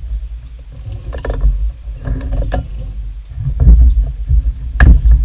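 Irregular clunks and knocks of handling on a small belt-driven metal lathe as it is set up to run at a higher speed, over an uneven low rumble, with a sharp knock near the end.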